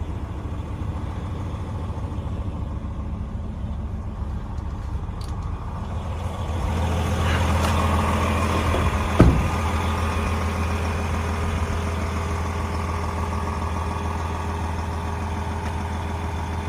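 DAF XG 480 truck's diesel engine idling steadily. About six and a half seconds in its hum grows louder. A sound falls in pitch over the next two seconds, ending in a single sharp knock just past the middle, the loudest moment.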